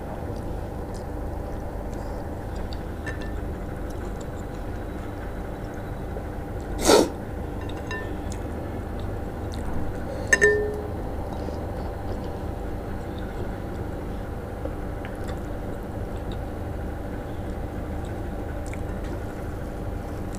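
Hand squishing and mixing rice soaked in water in a ceramic bowl: small wet squelches and drips, with two sharp clinks, one about seven seconds in and a double one with a brief ring about ten seconds in, over a steady background hum.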